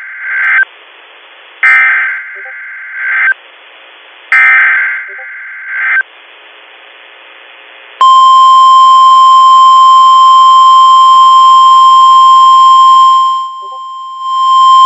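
Emergency Alert System digital header bursts: the end of one and then two more, each about a second and a half long with a second's gap between them. About eight seconds in comes NOAA Weather Radio's loud, steady 1050 Hz warning alarm tone, which signals that an alert message follows.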